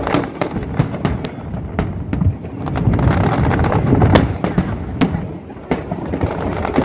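Fireworks display: a rapid barrage of sharp bangs and crackling shell bursts over a continuous low rumble, heaviest about three to four seconds in.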